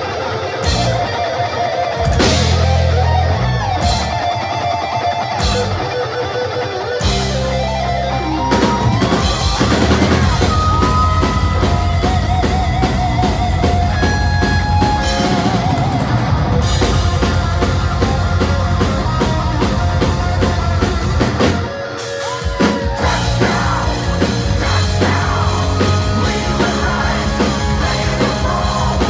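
Heavy metal band playing live on electric guitars, bass and drum kit. It opens with separate chord-and-drum hits with short gaps between them, then the full band plays on steadily, with a brief break about three quarters of the way through.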